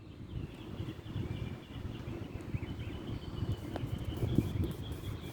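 Outdoor background: a steady low rumble with faint, thin, high-pitched animal calls chirping on and off.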